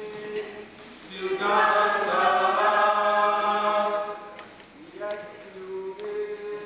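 A group of voices singing a chant without instruments: a long held note, then the whole group singing louder for about three seconds, then the held note again.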